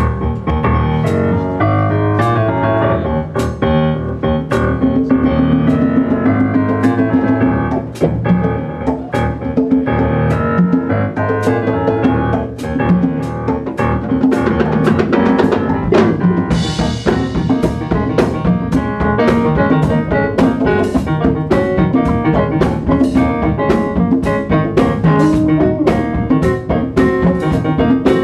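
Live jazz band playing: piano on a stage keyboard over a drum kit keeping a steady beat.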